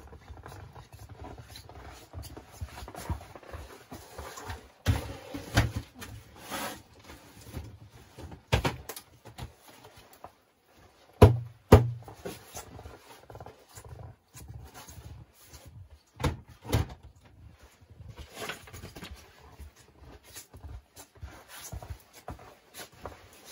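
Footsteps crunching in snow and camping gear being carried and set down, with a string of short knocks and rustles. Two loud knocks about halfway through.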